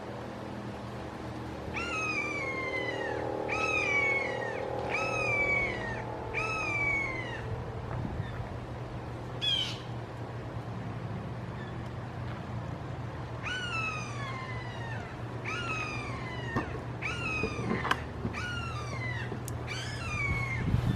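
Red-shouldered hawks calling, a series of downslurred kee-ah screams about one a second: a run of five, a pause of several seconds, then a run of about eight.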